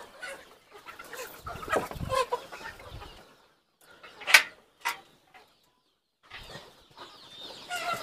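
Country (nati) chickens clucking on and off, with two sharp clicks a little past the middle.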